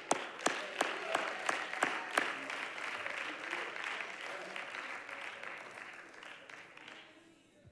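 Church congregation applauding. A few sharp separate claps stand out at first, then the clapping dies away gradually to near silence.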